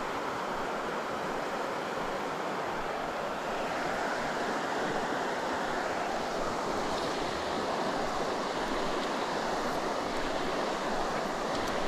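River water rushing steadily, an even unbroken hiss.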